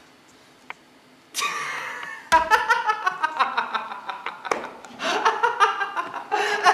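A person laughing in a long run of quick, repeated bursts, starting about two seconds in after a breathy intake of voice.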